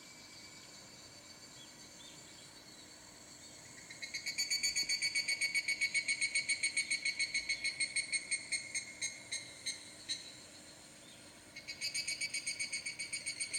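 A small animal's rhythmic pulsed call, about six or seven pulses a second, played back as a rural ambience sound effect. It starts about four seconds in, fades out a few seconds later, and starts again near the end.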